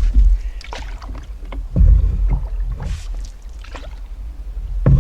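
Canoe paddle strokes in lake water, a splash or swish every second or two, over a steady low rumble.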